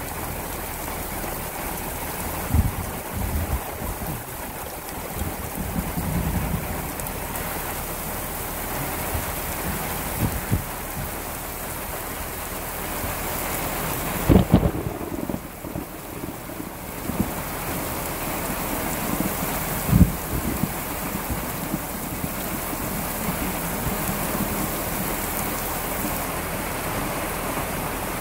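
Heavy desert downpour hissing steadily, with a few short low thumps, the loudest about halfway and about two-thirds through; the hiss thins briefly just after the middle.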